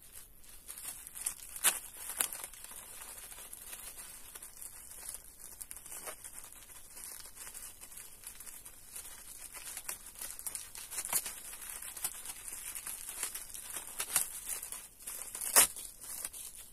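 Plastic packaging of sanitary pads crinkling and rustling as a pad is taken out and unwrapped, with several sharp crackles; the loudest comes near the end.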